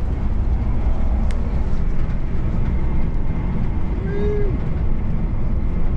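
Steady low rumble of a Greyhound coach's engine and tyres at highway speed, heard from inside the cabin. A short whine rises and falls about four seconds in.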